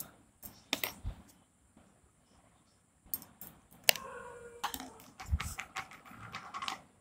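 Light clicks and metallic clinks against a stainless-steel mixing bowl as cornflour is worked into marinated chicken by hand. The taps come thick and irregular from about three seconds in, with a short metallic ring in the middle.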